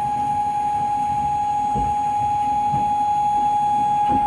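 A steady high alarm tone, held without a break, over a low irregular rumble. It is the warning signal of a fire training simulator announcing a rollover.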